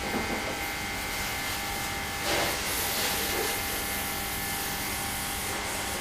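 Small 12-volt, 65-watt electric high-pressure washer pump running steadily with a motor hum, its water jet hissing onto a car windshield.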